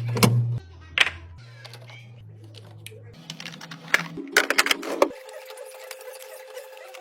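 Plastic containers and packaged items clicking and clattering as they are set into a fridge: a sharp click near the start, another about a second in, and a quick run of clacks around four to five seconds in, over steady low tones.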